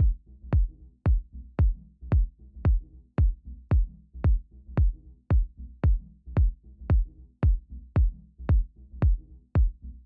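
Background electronic music with a steady drum-machine kick beat, about two beats a second.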